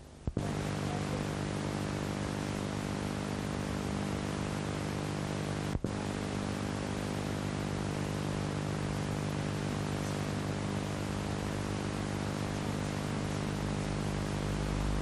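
Steady hiss with an electrical hum on an old videotape sound track, cutting in abruptly just after the start and dropping out for an instant about six seconds in.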